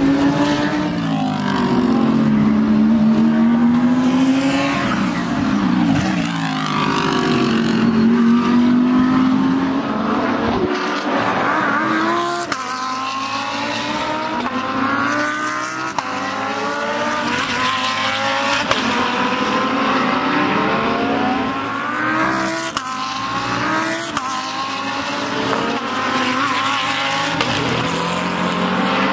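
Audi R8 LMS EVO II GT3 race car's V10 engine running hard on track, its pitch climbing and dropping back again and again as it pulls through the gears.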